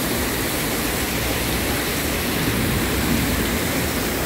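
Torrential downpour: heavy rain pouring steadily onto the pavement and a flooding street, a dense, even hiss.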